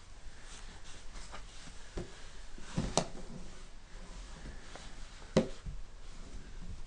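A toddler moving about at the side of a bed: soft rustling and handling of the bedding, with a few short knocks, the two sharpest about three seconds in and again about two and a half seconds later.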